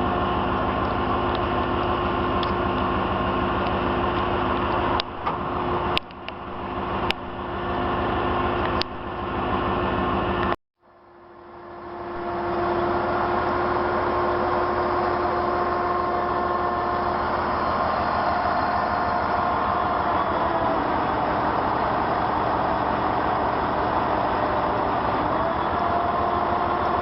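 A truck engine running steadily, with a few sharp clicks a little after halfway through its first stretch. About ten seconds in it cuts off abruptly. Two seconds later an engine drone fades back in and runs steadily, its pitch shifting slightly.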